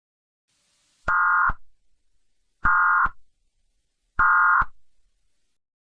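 Emergency Alert System end-of-message signal: three short, identical buzzing data bursts, each about half a second long and spaced about a second and a half apart, marking the end of the alert.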